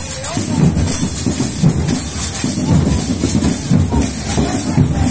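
Marching band percussion, drums with cymbals, playing a loud, driving beat.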